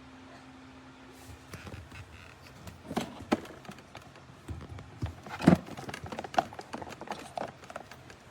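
Irregular knocks and clicks of hard parts being handled, the loudest about five and a half seconds in. A steady low hum stops about a second and a half in.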